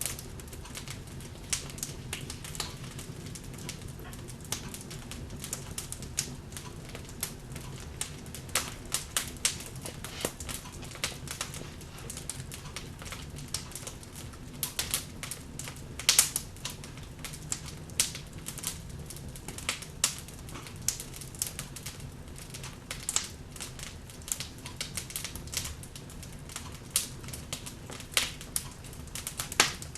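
Wood fire crackling in a fireplace: irregular sharp pops and snaps over a steady low background, with one louder pop about sixteen seconds in.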